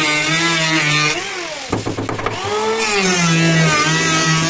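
Background music: a long-held melody in two phrases, with a low steady hum joining underneath about two seconds in.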